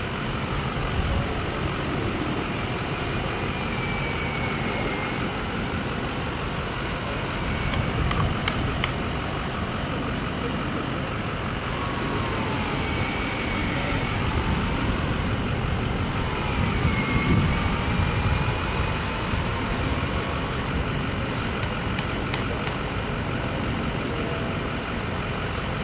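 Cordless drill boring injection holes into a tree trunk, its motor whine rising and falling in three separate passes. Under it runs a steady low vehicle engine rumble.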